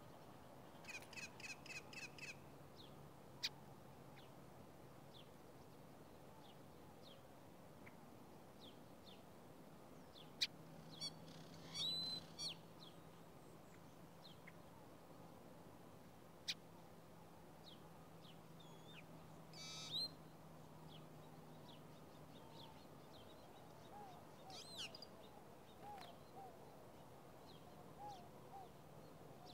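Small songbirds chirping and calling: a quick run of about seven chirps near the start, then scattered short calls with brief twittering bursts about twelve and twenty seconds in, and soft short notes near the end. A few sharp clicks stand out among the calls, over a faint low hum.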